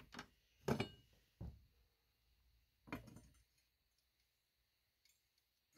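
A few short metallic clinks and knocks, the loudest a little under a second in and two more within the next two seconds, as a steel mulching mower blade is taken off the sharpening jig and handled.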